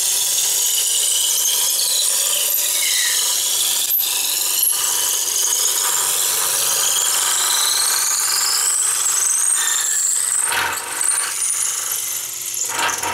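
Square wood blank spinning at about 3,000 RPM on a Powermatic lathe while it is fed through a 3/8-inch Veritas dowel maker: a steady, loud, high shaving noise with whining tones that slowly rise as the blade cuts it round into a dowel. The sound falters and breaks up over the last few seconds.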